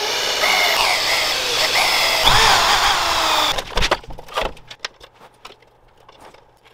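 Electric drill boring through a steel plate, the motor running and the bit cutting with a squeal that wavers in pitch, for about three and a half seconds before it stops. After that come a few scattered knocks and clanks of metal parts being handled.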